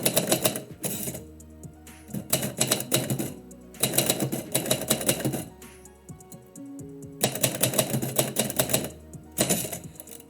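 Typewriter keys striking in rapid bursts of typing, about five runs broken by short pauses, as a poem is typed out.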